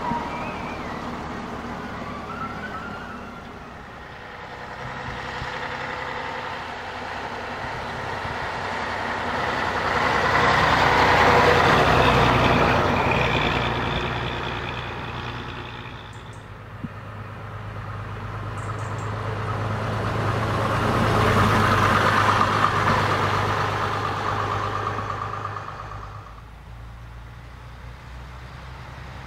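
Preserved vintage buses going past, their engine and road noise swelling twice: loudest a little before halfway and again about two-thirds through, over a steady low engine hum.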